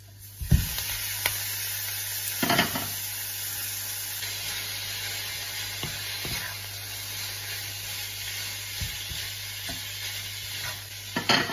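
Minced beef landing in a hot frying pan of sliced red onions about half a second in, then sizzling steadily as it fries. A plastic spatula stirs and breaks it up, knocking against the pan several times.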